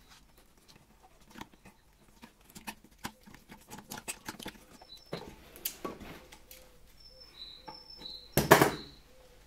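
Electrical insulating tape being unwound and wrapped by hand: soft crinkling and small scattered clicks, then a louder rasp of tape pulled off the roll near the end.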